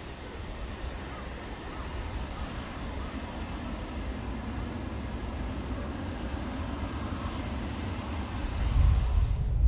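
Jet airliner's engines on the landing roll: a steady rushing roar that grows slowly louder. Near the end it gives way abruptly to a louder, deeper jet roar.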